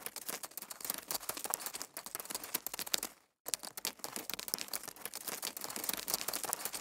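A dense run of fine crackling clicks at a low level, breaking off into silence for a moment about three seconds in before resuming.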